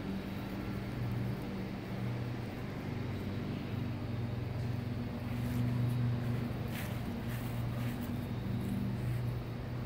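A steady low mechanical hum, a motor or engine running without change.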